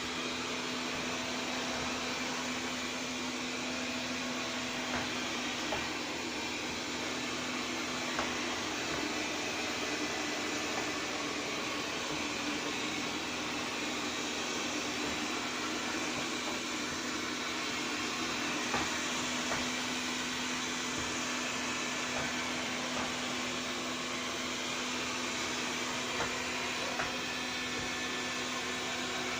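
Xiaomi Mi Robot Vacuum-Mop P robot vacuum running steadily: an even fan-and-brush noise with a low hum, and a few light clicks along the way.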